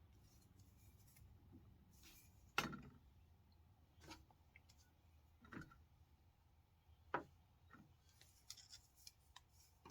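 A few sharp plastic clicks and knocks from 3D-printed truss pieces being handled, spaced a second or so apart, with a quick run of small clicks near the end.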